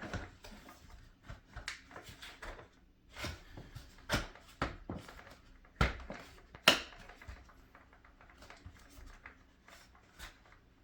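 Hard plastic toy playset parts being handled and pushed together: an irregular string of clicks and knocks, the two sharpest about six and seven seconds in.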